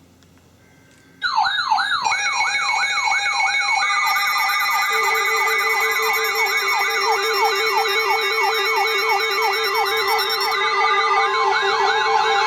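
Several weather alert radios going into alarm at once, starting suddenly about a second in: a loud, rapid siren-like warble of about three sweeps a second, with steady and pulsing beep tones stacked on top. Near the end another steady tone joins. This is the alarm for a severe thunderstorm warning.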